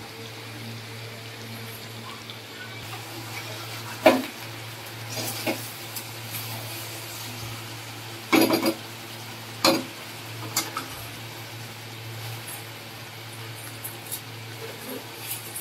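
Metal spatula scraping and knocking against a kadhai as masala-coated chicken is stirred and fried, several separate scrapes with the loudest about four and eight seconds in. A steady low hum runs underneath.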